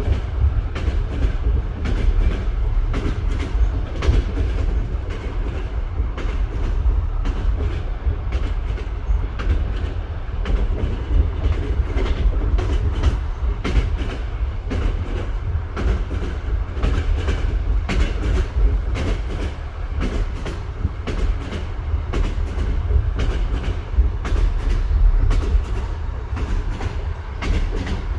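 Train running along the line, its wheels knocking continually over rail joints in an unceasing clickety-clack above a heavy low rumble.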